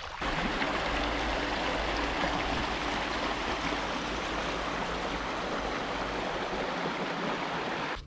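Small brook of snowmelt water running steadily, an even rushing noise.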